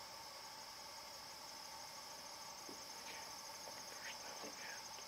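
Night chorus of crickets, a steady high pulsing trill, with a few faint short sounds of unclear source in the second half.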